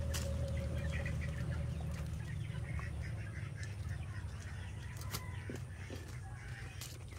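Chickens clucking, over a steady low rumble.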